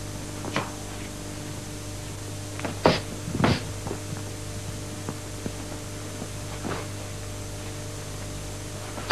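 Bare-foot kicks landing on a partner's leg: two thuds about half a second apart near the middle, with lighter thumps before and after, over a steady electrical hum.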